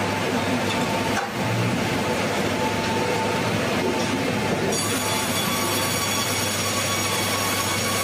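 Sawmill machinery running, a steady dense mechanical din with whining tones, while a log is rolled onto the mill's carriage; a higher whine joins just before halfway.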